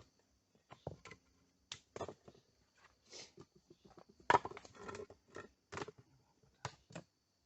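Irregular knocks and clunks of hard objects being handled, about a dozen separate strikes, loudest in a cluster about four to five seconds in.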